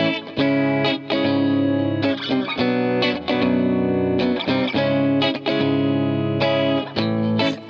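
Garage-punk song intro: electric guitar with distortion playing held chords, each ringing for one to two seconds before a brief gap and the next chord.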